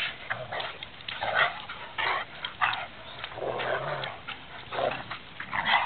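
Two dogs play-fighting and squabbling gently, giving short growls and snarls in irregular bursts about once or twice a second.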